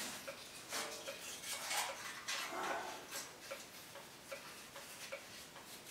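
Black steel stove pipe scraping and clinking faintly against the metal wall sleeve of a chimney as it is worked in, where it is hanging up and will not go in all the way. A faint regular ticking, about two or three a second, runs through the second half.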